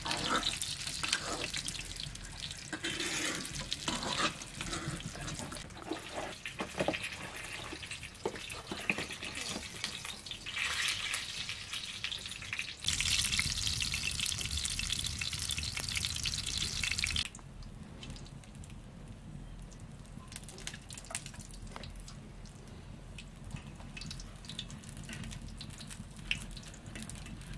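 Bolani, stuffed flatbreads, frying in a pan of oil over a wood fire: a steady sizzle with crackles, and a metal spatula clicking and scraping against the pan. The sizzle is loudest for a few seconds about halfway through, then drops back.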